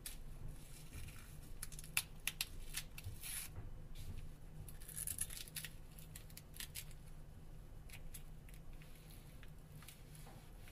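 Adhesive heat spreader sheet being peeled off a Nokia Lumia 1520's battery by hand: faint crinkling and tearing with scattered small clicks, plus two short rustles about three and five seconds in.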